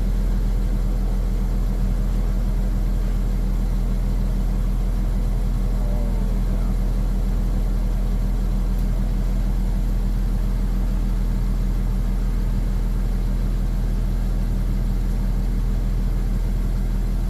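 Subaru Outback engine running steadily in gear with the wheels spinning on stands, the drivetrain and wheel bearings turning under a steady drone. It is run to hear out noisy wheel bearings: both sides make noise, the passenger side the worst.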